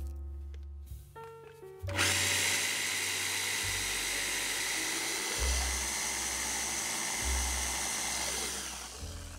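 Braun hand-blender chopper running and grinding biscuit crumbs, a steady motor noise with a high whine. It starts about two seconds in and stops shortly before the end; soft background music plays before it starts.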